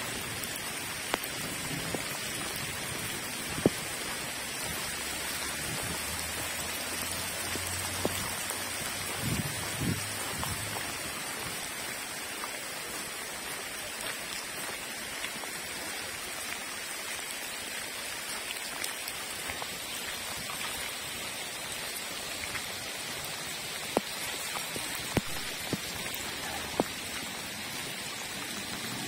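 Heavy downpour pouring onto a paved lane and roadside plants, a steady hiss with a few sharp taps scattered through it.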